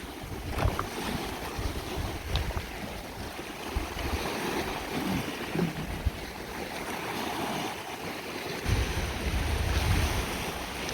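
Lake Superior waves washing on a rocky shore, with wind buffeting the microphone, heavier near the end.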